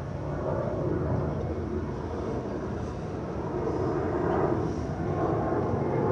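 A steady low rumble of outdoor engine-like background noise, swelling a little about four seconds in.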